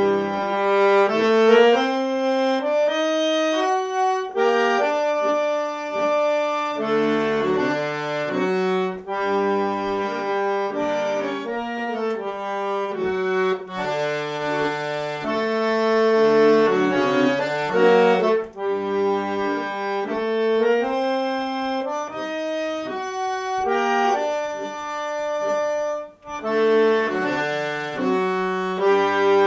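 Solo accordion playing a tune: a moving melody over held chords, with short low bass notes now and then, and a brief break shortly before the end.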